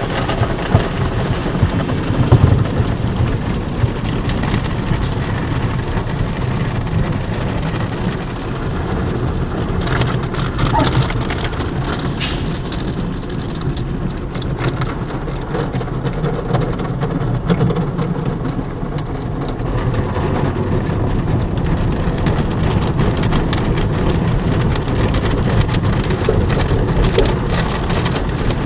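Automatic car wash heard from inside the car's cabin: a steady spray of water drumming on the roof and windshield, with many sharp knocks and slaps as cloth strips and brushes sweep over the body, thickest about a third of the way in and again near the end.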